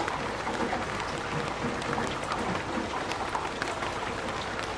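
Heavy rain hitting a plastic porch roof: a steady, dense wash of rain noise dotted with many sharp individual drop impacts.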